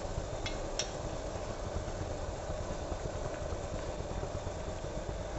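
Sugar syrup bubbling in an enamel pot on a gas hob, under a steady hum. A plastic spoon taps lightly against the pot twice within the first second.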